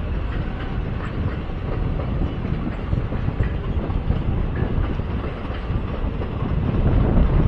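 Long Indian Railways express passenger train of blue coaches running through at speed: a steady rumble of wheels on rail with faint clickety-clack, growing a little louder toward the end.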